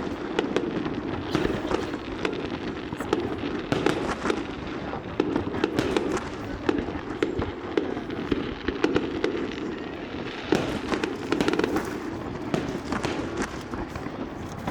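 Fireworks going off: dense, rapid crackling pops and sharp bangs, overlapping with one another.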